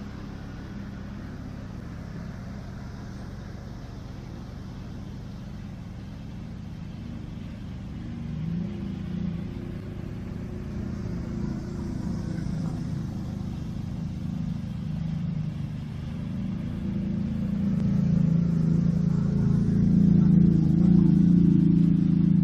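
ATV engine running steadily with a low hum, growing louder over the last several seconds.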